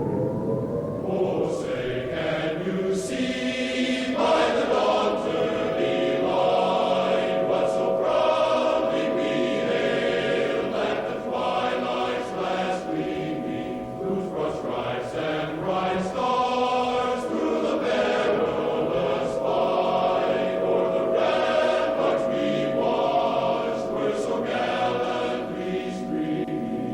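Choral music: a choir singing over held chords, with the sung notes moving above the sustained tones.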